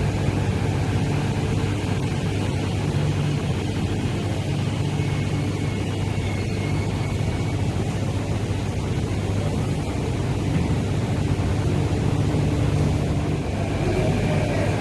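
MTR Kwun Tong Line train running into an underground platform and slowing to a stop, heard through platform screen doors that are stuck open: a steady rumble and hum, with faint high whines about halfway through.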